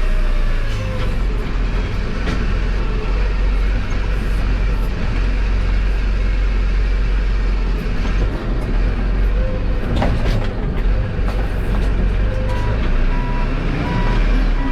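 A large engine running steadily under load, with evenly spaced beeps, like a machine's reversing alarm, starting near the end.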